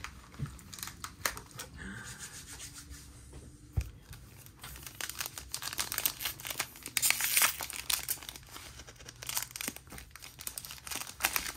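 Shiny plastic wrapper of a sealed trading-card pack crinkling and crackling as it is handled, in dense irregular bursts from about halfway through. A soft thump about four seconds in.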